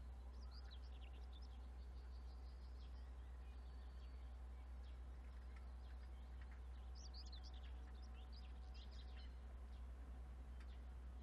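Faint birdsong outdoors: short chirps and trills, one cluster early and another around the middle, over a steady low hum.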